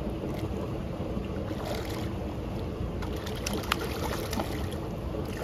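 Fish splashing and thrashing at the surface of a pond, with a run of quick sharp splashes in the second half, over a steady rushing noise.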